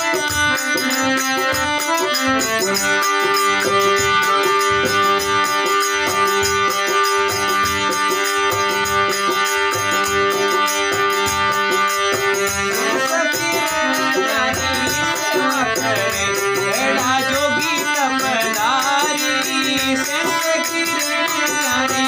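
Instrumental interlude of a folk devotional song (bhajan): long held chords over a steady drum beat, then a melody line that bends up and down about halfway through.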